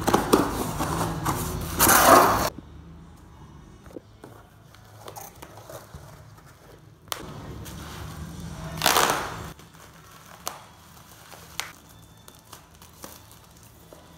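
A cardboard shipping box being pulled open by hand, with a loud tearing scrape about two seconds in. Then a blade cuts the bubble wrap inside and the plastic crinkles, with scattered light clicks and taps of handling.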